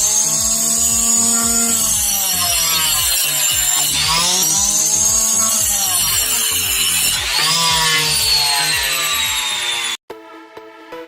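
Homemade circular saw, a 12V 775 DC motor spinning a 4-inch blade, cutting wood: its whine drops in pitch each time the blade bites and rises again as it frees, three times over. It cuts off suddenly near the end, giving way to quiet electronic music.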